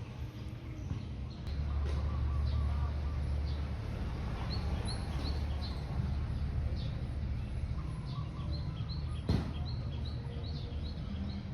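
Small bird calling in two quick runs of short high chirps, about three a second, over a steady low rumble; a single sharp click about nine seconds in.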